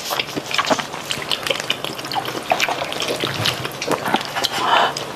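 Wet, sticky squelching and small clicks of metal chopsticks stirring and lifting sauce-coated malatang noodles in a glass bowl.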